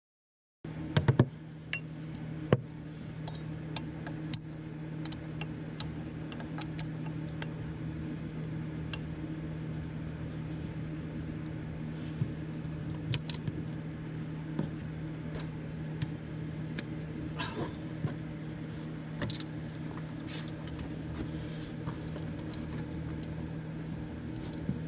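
Scattered metallic clicks and knocks of a wrench working the 12 mm belt tensioner bolt, over a steady low hum. The sound starts about half a second in, after a moment of dead silence.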